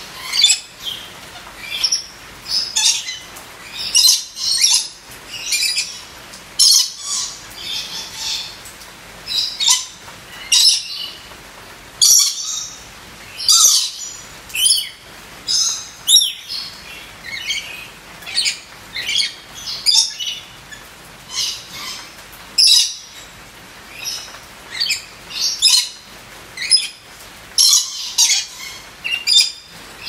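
Red lory giving a long series of short, high-pitched calls, one or two a second at irregular intervals.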